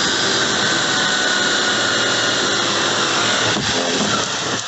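Cordless drill running steadily at speed with a bit grinding around the edge of a hole cut in a plastic kayak hull, widening it slightly. It stops near the end and spins down with a falling whine.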